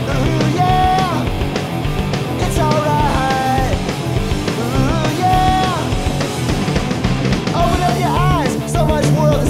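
Studio-recorded punk rock band playing: drums, bass and electric guitar, with a high melody line of held notes that bend up and down in pitch over the top.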